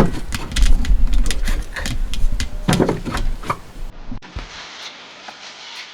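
Pine boards being handled and fitted together: a run of sharp wooden knocks, taps and clatters, which stop abruptly about four seconds in and give way to a quieter stretch with a few faint ticks.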